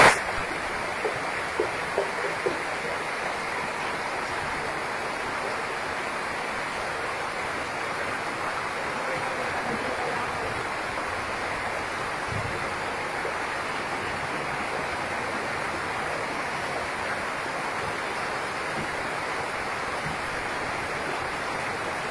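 Torrential rain pouring down while brown floodwater rushes along the street, a steady, even rushing noise.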